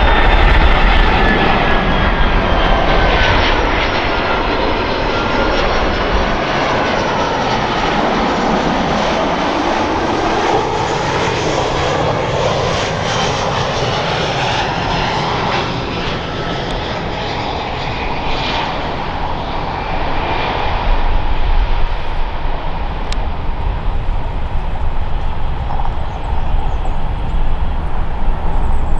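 Airbus A318 jet airliner passing by: continuous jet engine noise, with high whining tones that fall in pitch over the first few seconds and a slowly sweeping rumble as it goes past.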